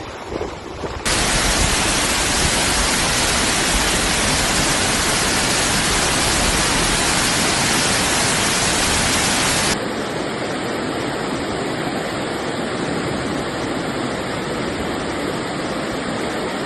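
Steady rushing of water, as from floodwater or downpour. It grows loud about a second in and drops abruptly to a quieter rushing nearly ten seconds in.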